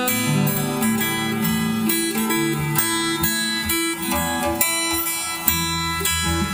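Instrumental passage of a song: acoustic guitar strummed and plucked in a steady rhythm, with no singing.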